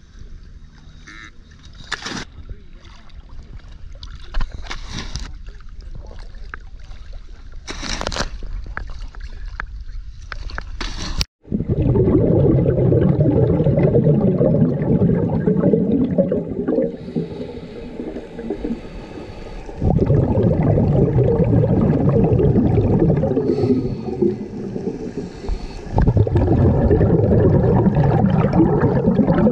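A few sharp splashes as divers step off a dive boat's stern. Then, a little over a third of the way in, underwater sound: a dense low rush of water and divers' exhaled regulator bubbles, with a few short quieter breaks.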